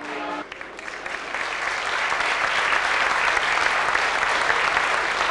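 A held musical chord cuts off about half a second in, and an audience applauds, the clapping swelling over the first two seconds and then holding steady.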